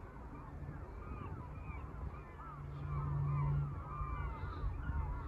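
A flock of birds calling without pause, many short rising-and-falling calls overlapping one another. Under it runs a low engine hum that swells about halfway through.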